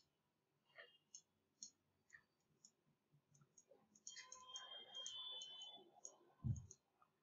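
Near silence: room tone with faint scattered clicks, a faint rustling patch about four to six seconds in, and a soft low thump near the end.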